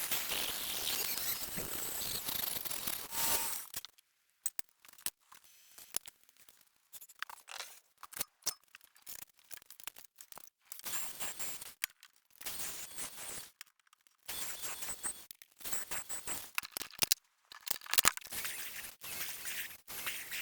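Woodworking shop noise cut into short snippets: bursts of scraping and cutting noise and sharp clicks, each broken off suddenly by silence.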